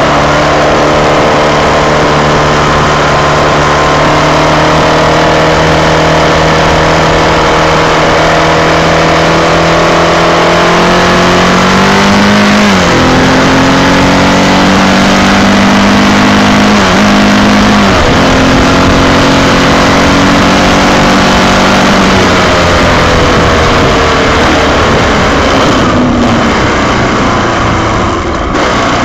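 Honda XR600's air-cooled single-cylinder four-stroke engine running under way, the note climbing slowly, then dipping sharply two or three times around the middle as gears change, and falling off near the end as the bike slows.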